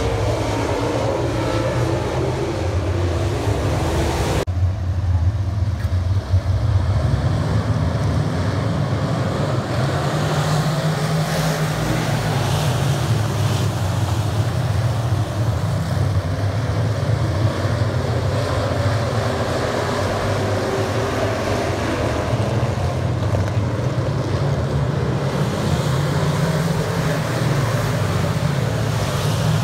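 A field of dirt late model race cars' V8 engines running hard together around a dirt oval, a loud, steady, deep drone. The sound changes abruptly about four seconds in and then carries on as before.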